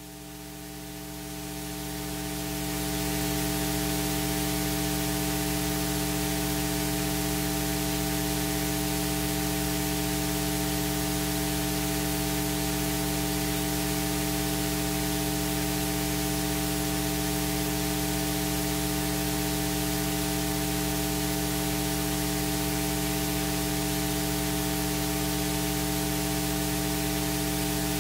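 Steady hiss with an electrical hum of several steady tones, swelling over the first three seconds and then holding level: static and mains hum in the recording.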